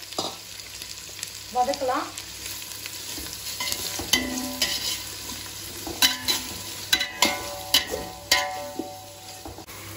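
Onions and whole spices frying and sizzling in hot oil in a cooking pot while being stirred. In the second half the stirring utensil knocks against the pot several times, each knock ringing briefly.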